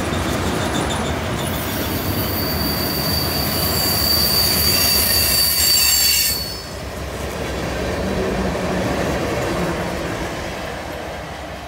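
Freight train tank cars and covered hopper cars rolling past on a curve, their steel wheels squealing against the rail in a high, steady screech from about a second in that cuts off suddenly around six seconds. The low rumble of the cars goes on and fades near the end.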